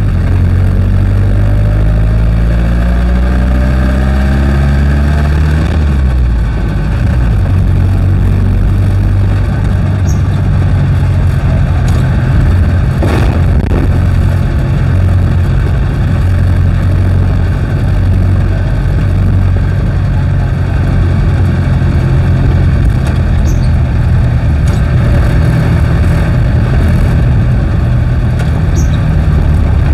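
Jeepney's diesel engine heard from the front seat, rising in pitch as it accelerates for the first few seconds and dropping at a gear change about six seconds in, then running steadily along the road. A single knock sounds about thirteen seconds in.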